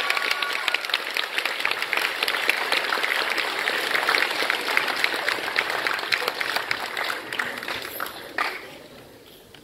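Applause, a steady dense clapping that fades away near the end.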